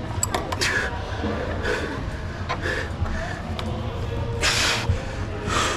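A climber breathing hard from exertion, heavy breaths about once a second, with a longer, stronger exhale a little past the middle. A few light clicks near the start, over a low steady hum.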